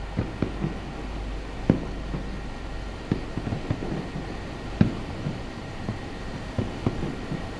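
Distant aerial firework shells bursting: irregular sharp booms and pops, the loudest about two seconds in and again near five seconds, over a steady low hum.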